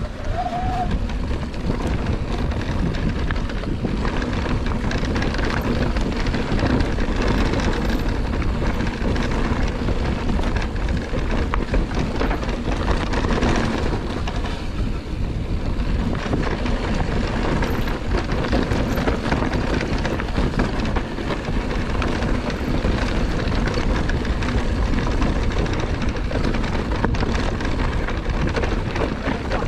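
Wind on the microphone and the rattle of a Scor 4060 Z ST electric mountain bike running over rough dirt singletrack: tyre roar with a dense stream of small knocks and clatters from the bike, steady throughout.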